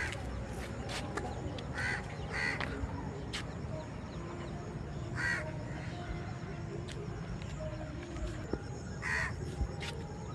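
Crow cawing, single short caws spaced irregularly: one at the start, a quick pair about two seconds in, then single caws about five and nine seconds in, over a faint steady background.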